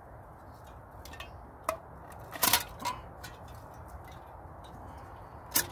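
Thin metal panels of a collapsible wood-burning camp stove clinking and clacking as they are handled: a handful of sharp metal clicks, a few with a brief ring, the loudest about halfway through and another near the end.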